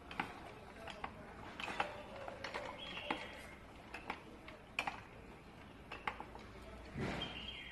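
Scattered light clicks and knocks of hands handling the oil container and fittings while the DQ200 gearbox's mechatronic unit is filled with new oil, with two short high squeaks, one about three seconds in and one near the end.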